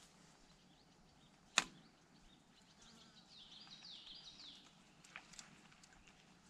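Quiet creekside background with one sharp click about a second and a half in, then a short run of high, down-slurred bird notes around the middle and a couple of faint ticks near the end.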